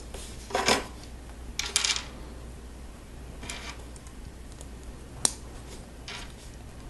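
Small plastic Lego pieces being handled and pressed together: a few short clicks and rattles, the loudest two in the first two seconds and a single sharp click a little past five seconds.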